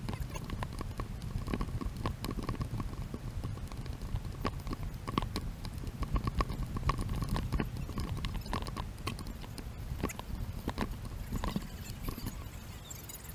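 Footsteps on a dirt and rock trail, a quick, irregular run of steps, over a steady low rumble.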